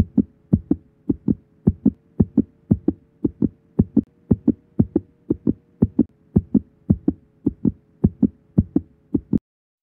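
Heartbeat sound effect: paired lub-dub thumps repeating evenly, a little under two beats a second, over a faint steady hum. It cuts off suddenly near the end.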